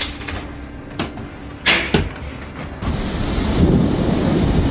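Storm through a window with two sharp knocks against the glass, then, after a cut, violent storm wind with driving rain buffeting the microphone in a loud, steady rush.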